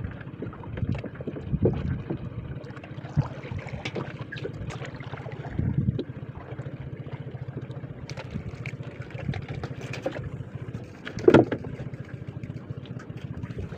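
A small fishing boat's engine runs steadily with a low hum, under wind and water noise. Now and then there is a sudden knock, and the loudest comes about eleven seconds in.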